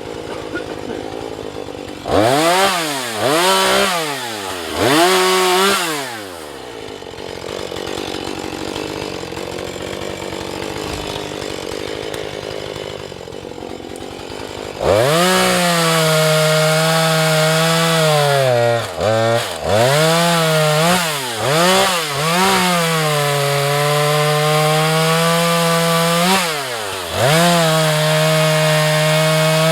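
Husqvarna 435 two-stroke chainsaw revved briefly three times from idle, left idling, then held at full throttle from about halfway through. While cutting wood its pitch drops briefly several times as the engine bogs under load.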